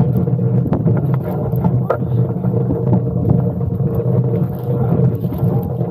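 Bicycle camper trailer being hauled over rough, rutted sandy ground: a steady rumble and rattle of its wheels and body, with many small knocks as it bumps along.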